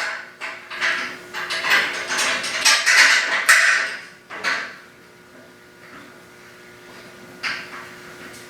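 Metal parts and hand tools clanking and knocking during kart chassis assembly: a quick irregular run of clanks and clinks for about four seconds, then quiet with a single knock near the end.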